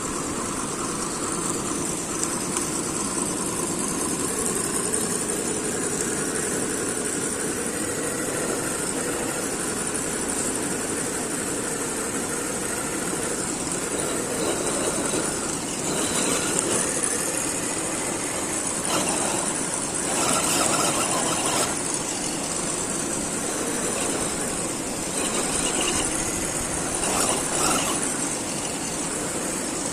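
1:10 RGT EX86010-CJ RC crawler's electric motor and gearbox whining steadily as it drives, with a few louder surges in the second half.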